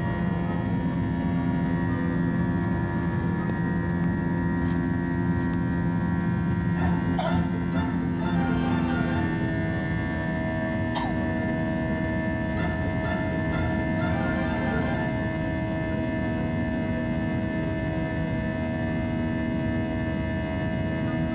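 Steady drone of a jet airliner's engines heard inside the cabin during the climb after takeoff: a constant hum made of many steady tones over a low rumble, with a couple of faint clicks partway through.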